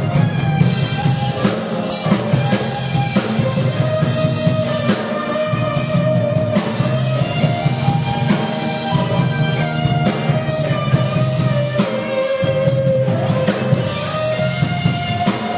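Live band playing an instrumental passage of a pop-rock song: guitar carrying the melody over bass and drum kit, with no singing.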